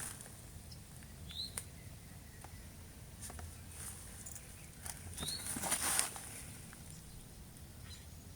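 Faint outdoor background with a few light clicks, two short high rising chirps and a brief rustle about six seconds in.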